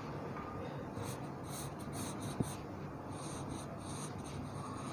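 Charcoal pencil scratching across drawing paper in short, repeated strokes, over a low steady hum, with one light tap about halfway through.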